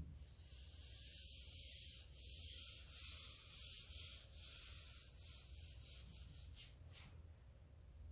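A palm rubbing back and forth across an interactive smartboard's screen to erase writing: a hissing rub in repeated strokes, breaking into short quick swipes near the end and stopping about seven seconds in.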